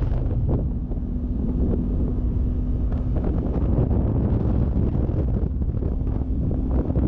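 Wind rushing over the microphone while riding a Yamaha YZF-R3, with its 321cc liquid-cooled parallel-twin engine running steadily underneath.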